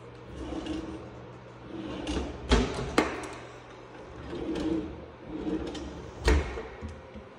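Wooden kitchen drawers with metal pull handles being slid open and shut, several times. The sliding sounds come with three sharp knocks.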